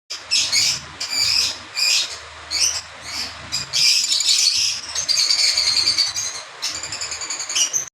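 A group of lovebirds chirping and chattering in many short, shrill, overlapping calls, denser and faster in the second half.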